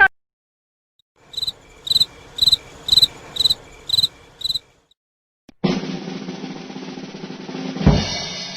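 Cricket-chirping sound effect: seven short high chirps, about two a second. Then a snare drum roll that ends in a bass drum and cymbal hit, ringing out.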